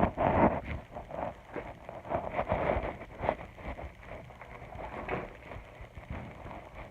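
Slime being handled and squished, with irregular wet clicks and crackles.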